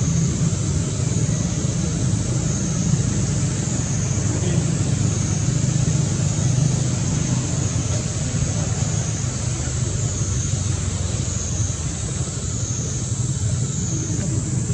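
Steady outdoor background noise: a continuous low rumble, with a high steady buzz above it that slowly swells and fades.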